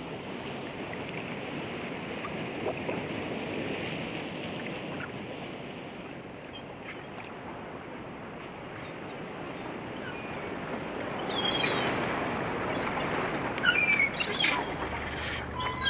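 Steady wash of ocean waves, with birds calling and squawking over it from about eleven seconds in.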